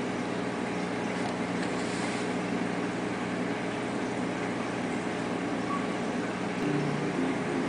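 Steady hum and hiss of running aquarium equipment, with a low drone underneath and a few faint clicks in the first couple of seconds. A second, slightly higher drone joins about two-thirds of the way through.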